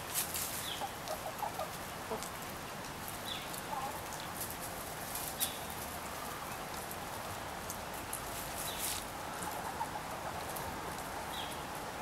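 Backyard chickens (Rhode Island Red, Welsummer, Partridge Rock and Golden Laced Wyandotte hens with a Golden Laced Wyandotte rooster) making soft, sparse clucks while feeding, with scattered sharp clicks and a few short high chirps over a steady hiss.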